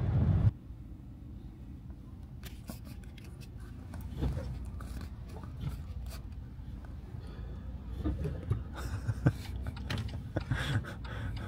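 Car cabin noise cuts off abruptly about half a second in. What follows is soft rustling and scattered clicks over a low rumble, busier near the end.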